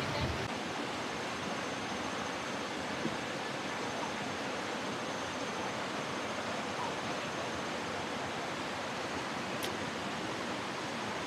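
Steady, even rushing of water, with no breaks or rise and fall.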